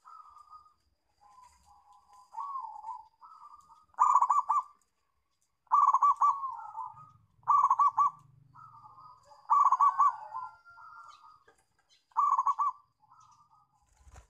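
Zebra dove (perkutut) cooing: five loud, rapid rolling coo phrases about two seconds apart, with softer wavering cooing notes between them.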